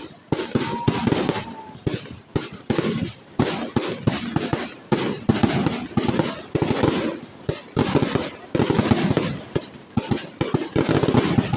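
Fireworks display: a near-continuous run of bangs and crackles from fireworks bursting overhead, many reports a second.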